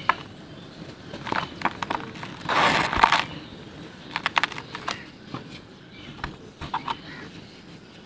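Dry red dirt balls squeezed and crumbled by hand: irregular gritty crunches and crackles as they break, with powdery dirt trickling down. The loudest, longest crunch comes about two and a half seconds in, followed by a quick run of sharp crackles about a second later.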